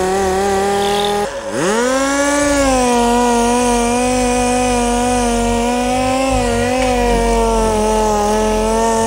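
Air-powered orbital sander whining at a steady pitch as it sands old paint off a car's body panels. About a second in it cuts out briefly, then spins back up with a rising whine before settling again.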